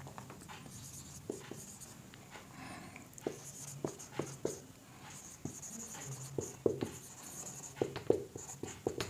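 Marker pen writing on a whiteboard: short scratchy strokes and small taps as a phrase is written out letter by letter.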